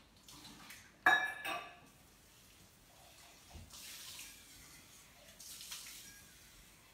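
A sharp clink about a second in, then tap water running into a sink in two short spells.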